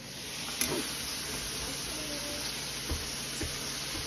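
Breakfast sausage links sizzling steadily in hot oil in a stainless frying pan, with a sharp click about half a second in and a couple of light knocks near the end.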